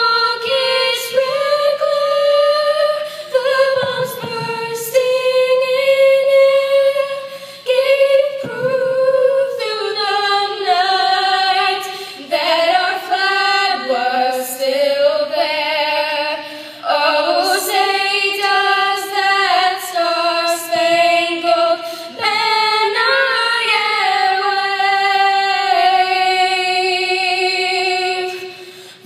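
Young girls singing a national anthem unaccompanied, with long held notes.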